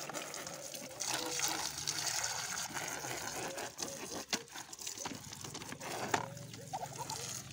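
A stream of water spraying onto a Muscovy duck's feathers and splashing on the wooden slats of its cage: a steady hiss that strengthens about a second in, with a sharp click a little past four seconds.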